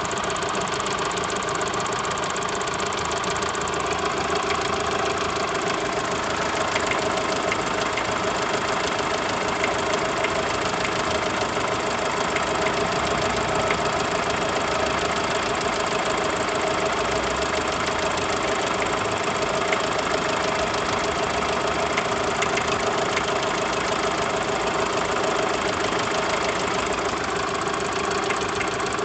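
A 1.4-litre car engine idling steadily, with a rapid, even knocking from the engine. It is a fault whose cause the owner is asking about.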